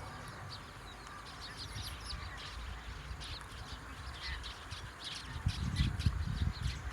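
Train approaching a level crossing: a low rumble builds up over the last second and a half. Under it runs a steady series of short high-pitched sounds, about three a second.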